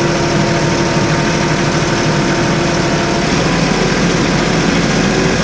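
Old Massey Ferguson tractor's engine running steadily, with a steady hum that drops away about two-thirds of the way through.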